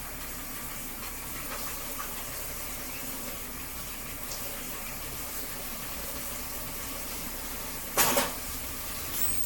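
Kitchen tap running steadily, filling a container with water. A single loud clunk comes near the end, and the water stops just after.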